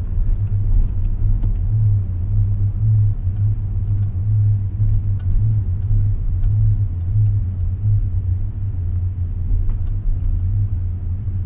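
Ford F-150 droning with a loud low hum heard from inside the cab while driving, swelling and dipping about once a second over road rumble. The owner says this hum is a fault that shows up when the truck is cold, 10 degrees and under, and stops when he turns left.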